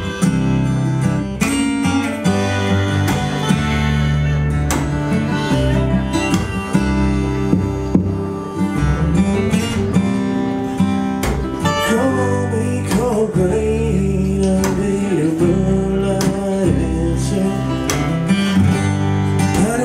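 Live acoustic blues band playing: acoustic guitar strumming over a walking double bass. From about twelve seconds in a bending, gliding melody line comes in over them, from the harmonica or the slide guitar.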